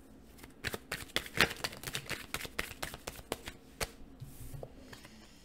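Tarot cards being handled and shuffled by hand: a run of irregular light clicks and flicks of card stock.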